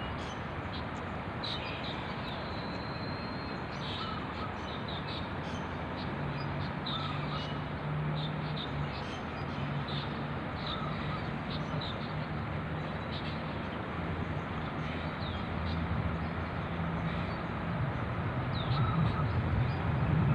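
Birds chirping in short, scattered calls over a steady outdoor background noise, with a low steady hum coming in about six seconds in.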